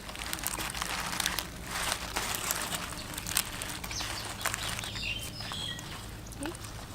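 Scratchy scraping and rustling as fish is handled, its flesh pushed out and scraped by hand. Birds chirp in the background in the second half.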